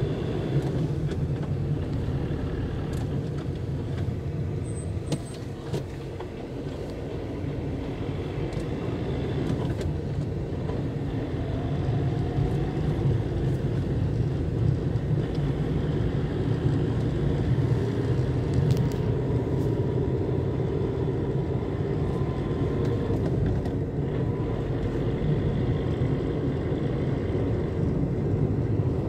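Car driving on a paved road, heard from inside the cabin: a steady low rumble of engine and tyre noise that grows a little louder about twelve seconds in.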